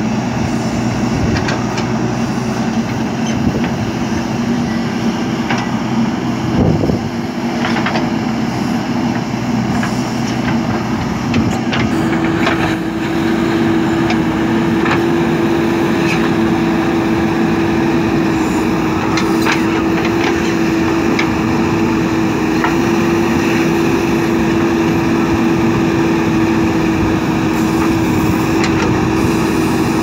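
JCB 3DX backhoe loader's diesel engine running under digging load, with scattered knocks of the bucket on soil and stones. About twelve seconds in the engine settles into a steadier, slightly louder drone that holds.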